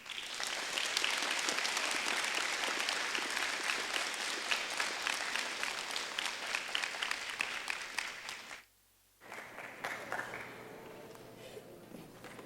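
Audience applauding: dense clapping for about eight seconds. It is cut by a brief total silence about nine seconds in, then returns quieter and thins out.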